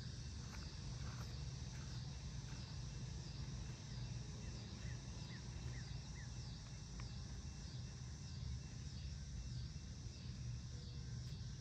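Outdoor insect chorus: a high drone that swells and fades a little more than once a second, over a steady low rumble, with a few short faint chirps near the middle.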